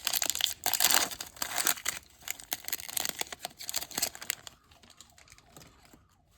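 A trading-card pack's wrapper being torn open and crinkled: dense crackling for about four and a half seconds, then only a few faint rustles and clicks.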